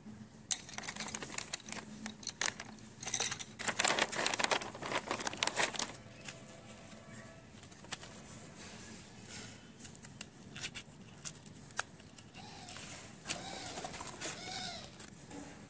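Packaging being handled: crinkling and rustling with sharp clicks as a cardboard crayon box is picked up and opened over a plastic packet, loudest in the first half. Near the end, a bird calls a few times.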